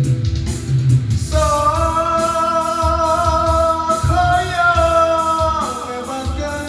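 Sundanese pop song with a band: a steady beat and guitar, with one long held melodic note that comes in about a second in and bends down and fades near the end.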